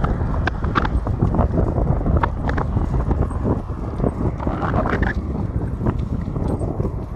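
Wind buffeting the phone's microphone and tyre rumble from a bicycle being ridden on an asphalt cycle path, with irregular clicks and rattles throughout.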